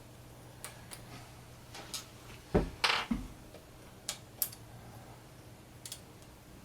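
Scattered small metal clicks and taps of an Allen key and screws as socket-head Allen screws are backed out of a mini mill and handled. There is one louder knock about midway, followed by a short scrape, and a faint steady low hum underneath.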